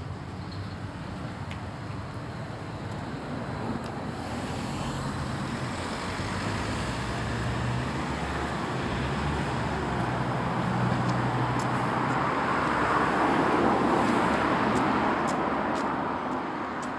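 A road vehicle approaching and passing along the street, its engine hum and tyre noise slowly growing louder to a peak late on, then fading.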